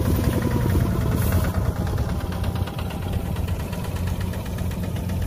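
Rice combine harvester's engine running steadily under load, a low, even drone with a fast pulsing beat.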